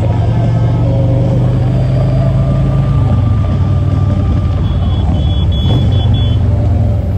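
Motorcycle engine running steadily while riding in a group of motorcycles, heard from on the bike; the engine note drops about three seconds in. A few short high-pitched beeps sound near the middle.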